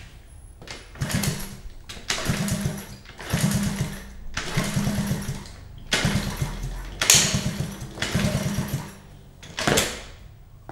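Honda QA50 minibike's small 49cc four-stroke single being kick-started over and over, about eight kicks roughly a second apart. Each kick turns the engine over in a brief burst that dies away, and the engine does not keep running.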